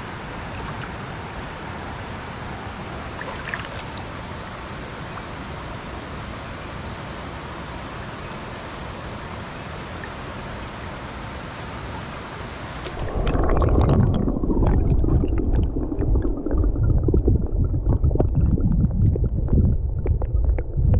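Steady rush of a shallow river's flowing water. About two-thirds of the way in the microphone goes under the surface, and the sound turns suddenly into a louder, muffled underwater rumble with crackling.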